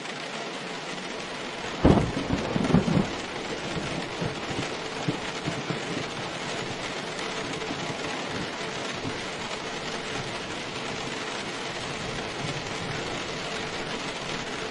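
Steady rain falling, with a sudden crack of thunder about two seconds in that rumbles on for a few seconds and fades back under the rain.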